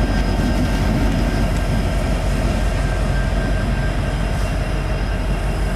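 Diesel locomotives running light with no cars behind them, a steady low rumble with faint steady tones over it.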